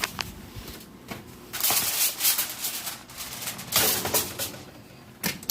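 Oven door and metal rack clattering and rattling as a foil-covered baking dish is slid in, with a sharp knock near the end.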